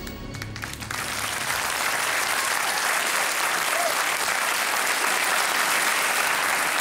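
Studio audience applauding steadily, as the last notes of the theme music die away in the first second.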